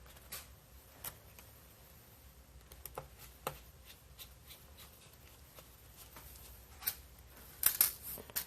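Light, scattered clicks and taps of small metal parts and a screwdriver being handled during a laptop repair, with a quick run of sharper clicks near the end.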